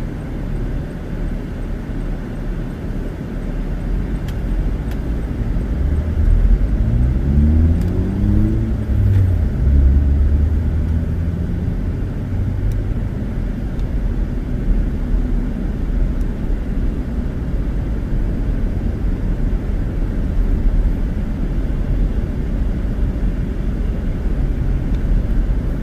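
Car driving along a road: steady engine and tyre noise, with the engine note rising as the car speeds up about seven seconds in.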